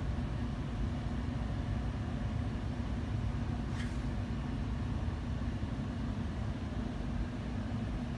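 Steady low mechanical hum and rumble with a faint steady tone in it, and a brief hiss about four seconds in.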